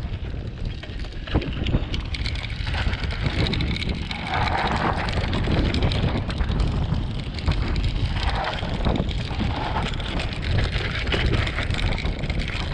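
Mountain bike riding fast down a loose gravel dirt trail: wind buffeting the camera microphone, tyres crunching over stones and the bike rattling over bumps, with many short knocks throughout.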